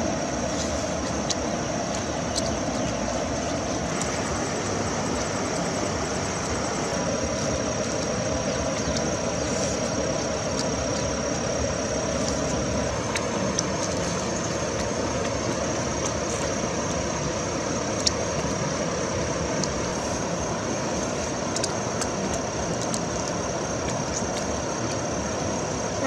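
Steady rushing of a flowing river, even and unbroken, with a constant thin high-pitched tone over it.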